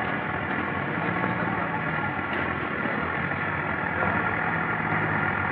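Steady low mechanical hum under a constant hiss of noise.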